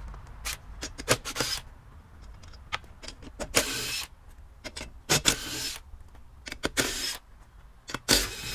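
Cordless impact wrench spinning the lug nuts off a trailer wheel in about five short bursts, with clicks of the socket and nuts in between.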